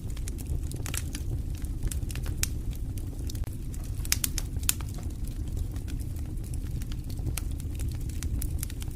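Wood fire burning in a fireplace: a steady low rumble of flame under irregular sharp crackles and pops, a few louder pops about four to five seconds in.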